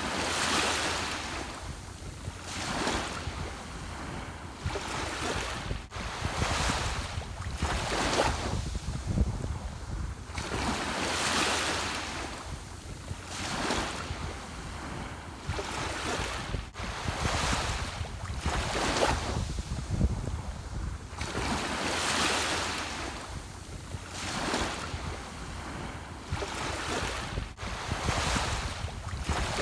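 Ocean surf: waves breaking and washing in one after another, a surge every two to three seconds over a steady low rumble.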